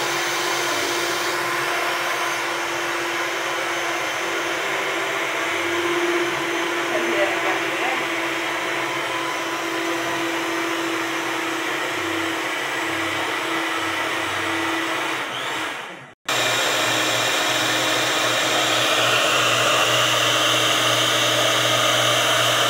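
Electric stand mixer running steadily, its beaters whirring through cake batter in the bowl. The sound drops out for a moment about two-thirds of the way through, then the mixer runs again.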